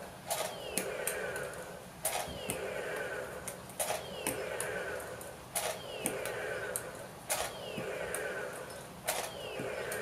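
Battery-powered toy RC tank firing soft foam pellets: its small motor-driven launcher cycles with a sharp click about every second and three-quarters, each followed by a falling whine.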